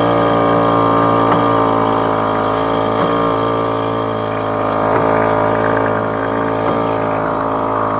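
Small outboard motor running steadily at constant throttle, a continuous drone with no change in pitch.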